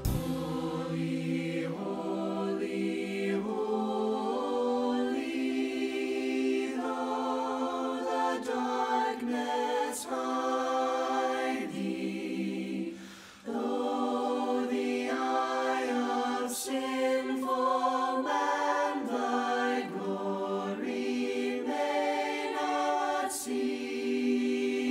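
Voices singing a hymn together in harmony in long held notes, with a short break for breath about halfway through.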